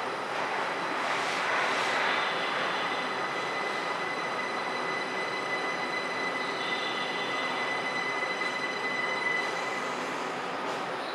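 Linimo HSST maglev train creeping into the platform: a steady hum of running gear and air with thin, level high-pitched tones. One tone cuts off about nine and a half seconds in as the train comes to a stop.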